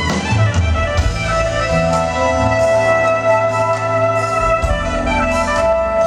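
Live smooth-jazz band playing: a soprano saxophone carries the melody, holding a long note in the second half, over electric bass guitar and drum kit with cymbals.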